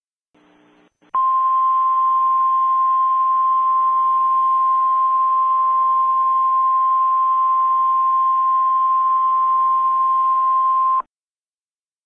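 Emergency Alert System attention tone: one loud, steady high-pitched tone over a faint hiss, starting about a second in and cutting off sharply near the end after about ten seconds.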